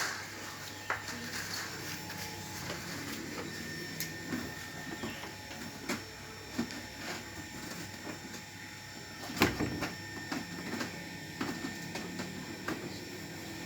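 Scattered small knocks and clatter, with one louder thump about nine and a half seconds in, over a faint steady hum.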